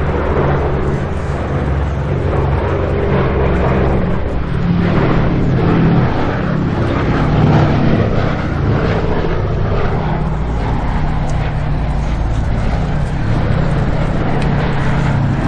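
Engines running with a steady low drone over a broad rushing noise, holding level throughout.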